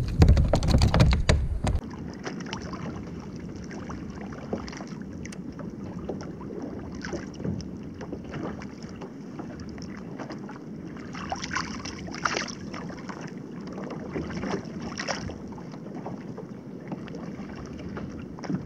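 Wind buffeting the microphone for under two seconds, then sea water lapping against a kayak's hull, with small scattered splashes.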